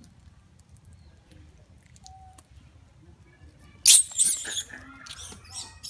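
Macaques screaming in a squabble: a loud, shrill shriek breaks out about four seconds in, and more screams follow near the end.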